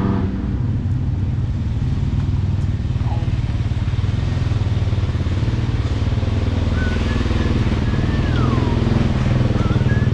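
Motorcycle engines running in a steady low rumble, which cuts off abruptly near the end. Someone whistles a few short gliding notes over it in the last few seconds.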